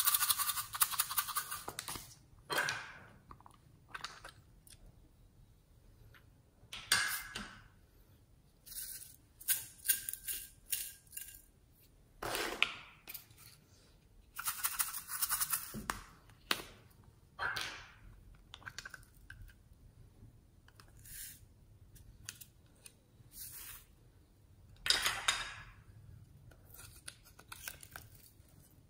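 Plastic lollipop-shaped toy containers being handled and opened: irregular bursts of crinkling and scraping plastic with sharp clicks, about a dozen of them with short quiet gaps between.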